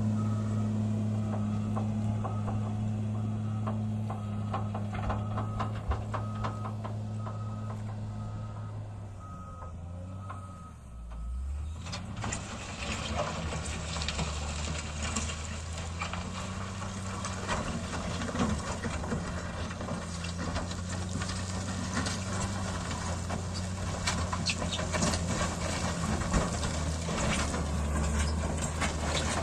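Diesel engine of a heavy road-works machine running, with a reversing alarm beeping about once a second for the first nine seconds or so. The engine note then drops about ten seconds in, and the engine comes back up under load with steady clattering and rattling.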